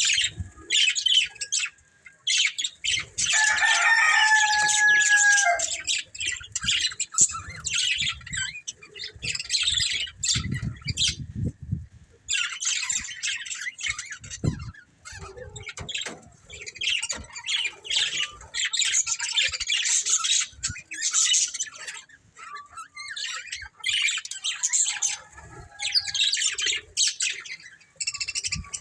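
Budgerigars chattering and chirping in rapid bursts with short pauses, and a clear whistled note about three seconds in. A low rumble near the middle.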